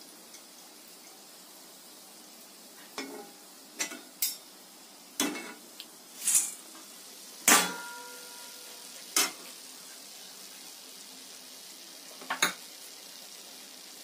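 Steel kitchen utensils knocking and clinking: a perforated slotted spoon and a wire-mesh frying basket tapping against each other and against steel pans as fried field beans are drained from hot oil, about eight separate knocks with one louder ringing clang about halfway through. A faint steady sizzle of hot oil runs behind.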